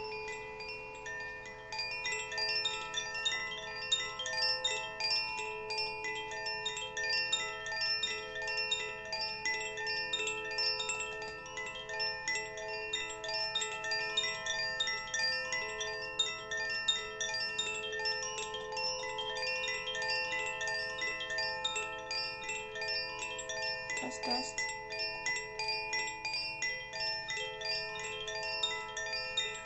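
Hand-held bamboo tube chime, moved gently so its striker keeps hitting the tuned chimes inside: a continuous wash of overlapping ringing tones with quick tinkling strikes. A soft knock sounds about three-quarters of the way through.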